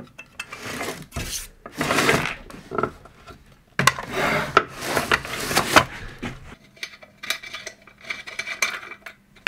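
Irregular scraping and clinking of metal parts of a mitre saw being handled, as the saw's fence is worked loose from the base.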